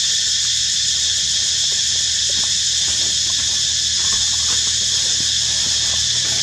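Steady, high-pitched drone of an insect chorus, unchanging throughout.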